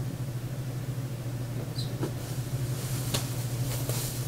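Steady low room hum, with a few light clicks and rustles in the second half as objects are handled on a tabletop.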